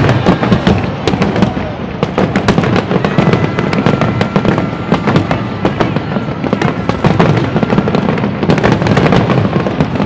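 Large aerial fireworks display: a continuous barrage of bangs and crackles, many per second.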